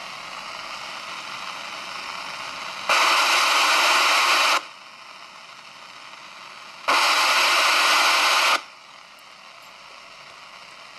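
President Harry II CB radio hissing with its squelch off at full volume and no antenna connected: the receiver's own noise. Twice, for about a second and a half each, the hiss jumps much louder, as metal is touched to the antenna socket.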